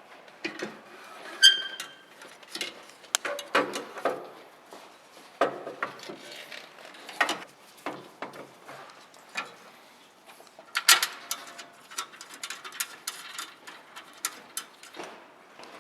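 Irregular clicks, knocks and clinks of hand work with tools and parts, with one short metallic ring about a second and a half in and a busier run of clicking around eleven seconds in.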